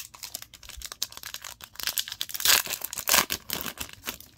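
Foil Digimon Card Game booster pack wrapper crinkling as it is handled and torn open, loudest about two and a half and three seconds in.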